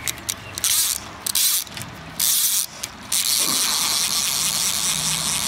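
Fly reel's click-and-pawl ratchet buzzing in short bursts, then continuously from about three seconds in, as line moves on the reel while a hooked brown trout is played.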